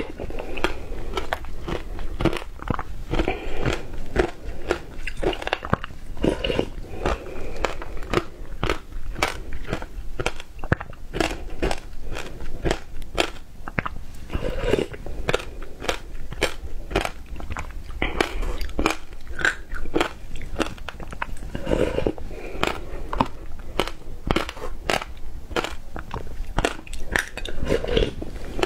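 Shaved ice mixed with passion fruit pulp being crunched and chewed close to a clip-on microphone: a dense, continuous run of crisp crunches, with a louder bite every few seconds as a new spoonful goes in.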